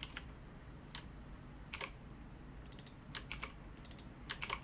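Computer keyboard keys clicking: single taps about a second apart, then quicker runs of several keystrokes in the second half.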